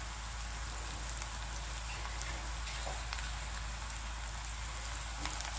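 Sliced onions and green chillies sizzling steadily in sesame oil in a kadai, with faint scattered crackles.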